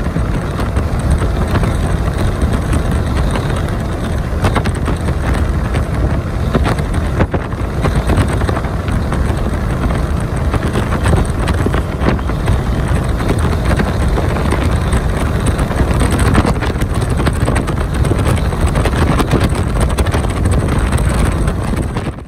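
Steady low rumble of road and wind noise inside the cab of a moving Freightliner Cascadia semi truck.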